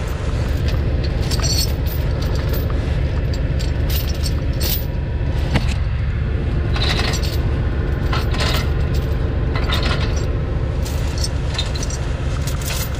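A vehicle engine idling steadily, with metallic clinks and scrapes of a tow chain and its grab hooks being handled under the truck's front end every second or two.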